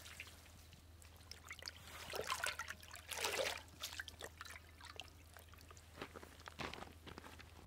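Liquid trickling and sloshing in a stainless steel bowl as a wet cherry-dyed cloth is lowered into wood-ash lye and worked by hand, the mordanting step of sakura dyeing. Irregular small splashes, loudest about three seconds in.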